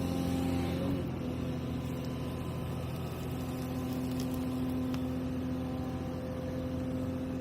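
Hyundai R220LC excavator's engine running steadily, its note changing about a second in.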